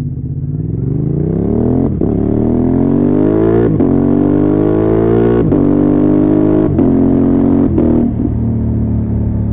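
Honda Transalp XL750's 755 cc parallel-twin engine through a MIVV exhaust with its dB-killer removed, accelerating hard: the pitch climbs in steps, with a brief sharp cut at each quickshifter upshift, five in all. Just after the last shift the throttle closes and the note drops to a steadier, lower run.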